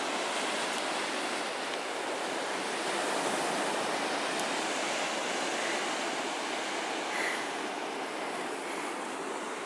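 Ocean surf breaking and washing up on the shore: a steady rushing noise.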